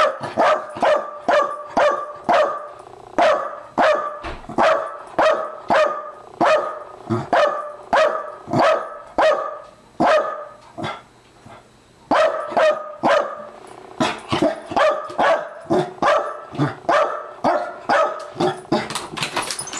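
Pembroke Welsh Corgi barking excitedly at a door, a long run of sharp barks about two to three a second, with a pause of a second or so about eleven seconds in.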